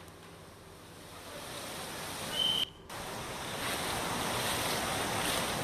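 Heavy rain and water noise, a steady hiss that grows louder. A short high tone sounds about two and a half seconds in, just before a brief break, and the rain-and-water noise then continues louder.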